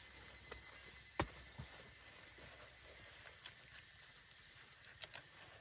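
A few light knocks and clicks as pumpkins are picked up and handled among the vines, the sharpest about a second in, over a quiet background.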